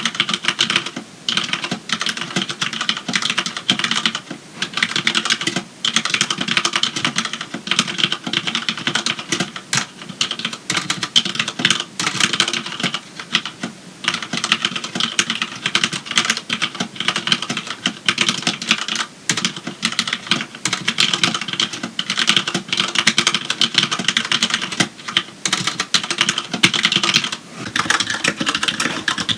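Steady typing on a Magicforce 68-key mechanical keyboard with Cherry MX Black switches: rapid, dense keystroke clacks with no click mechanism, since the switches are linear. Near the end the sound changes to a Filco Majestouch Tenkeyless with Cherry MX Red switches.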